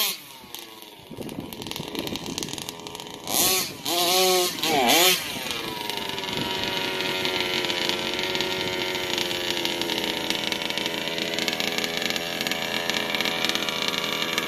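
Two-stroke gas engine of a large-scale RC buggy, blipped three times about 3.5 to 5 seconds in, then dropping to a steady idle. The owner takes it for running a little lean and in need of carburettor tuning.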